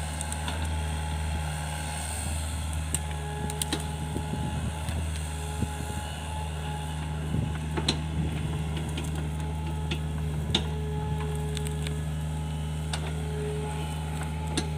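Hitachi mini excavator's diesel engine running steadily under working load as the machine digs, with several sharp knocks from the bucket striking the ground.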